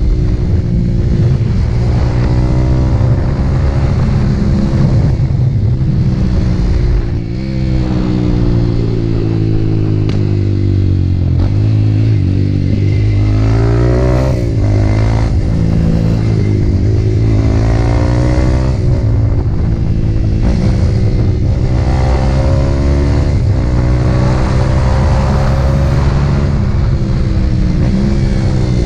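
Motorcycle engine running while being ridden, its revs climbing and dropping again and again as the rider accelerates and eases off.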